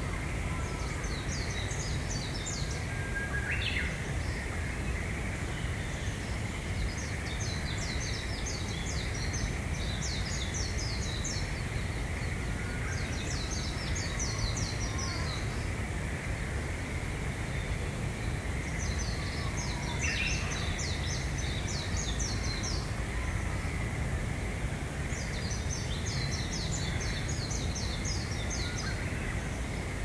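A songbird repeats a rapid, high-pitched twittering song phrase about every five to six seconds, each phrase lasting two to three seconds. Beneath it runs a steady faint high hum and constant low background noise.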